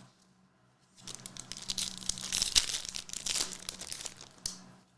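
A trading card pack wrapper being torn open and crinkled by hand: a dense run of crackling and tearing that starts about a second in, ending with a sharp click.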